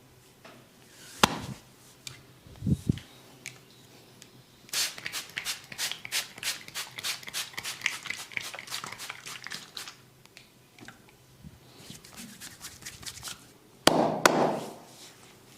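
Hands striking skin in a barber's massage: a few single sharp claps and knocks, then about five seconds of quick rhythmic tapping, roughly five strokes a second. Near the end come two sharp, loud cracks in quick succession.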